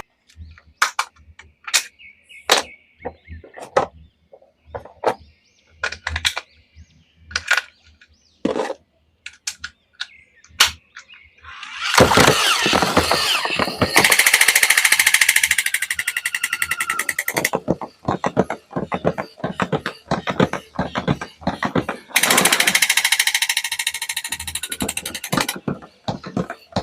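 Handling noises: scattered clicks and taps, then two spells of rapid, even rasping buzz a few seconds long.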